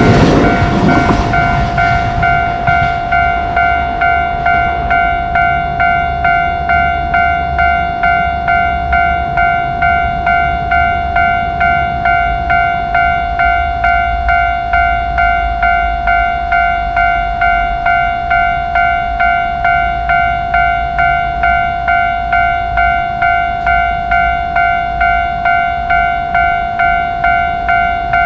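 Japanese level-crossing electronic warning bell ringing steadily, an even pitched ding about twice a second. A passing train's rumble and clatter fades out in the first two seconds.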